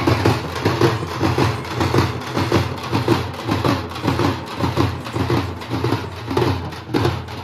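Festival drums beating a steady rhythm, about two to three beats a second.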